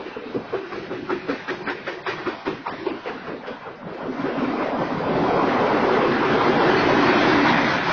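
Freight train of hopper cars rolling past: wheels clacking over the rail joints about three times a second, then from about halfway a louder, steady rushing noise of the passing cars.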